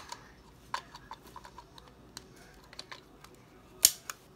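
Irregular light clicks and taps of a small plastic toy being handled and turned, with one louder sharp click near the end.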